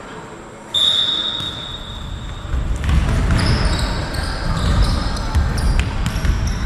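Referee's whistle blown in one long steady blast, starting sharply about a second in and lasting nearly two seconds. Then a heavy low rumble and shorter high tones from the pitch.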